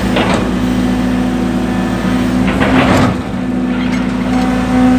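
Excavator's diesel engine running steadily while it digs, with two short bursts of noise from the machine working, one a moment in and one about three seconds in.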